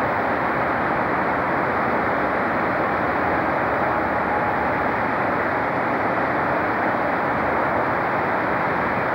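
A railway locomotive approaching slowly, heard as a steady, even rumble with a faint hum and no distinct knocks or horn.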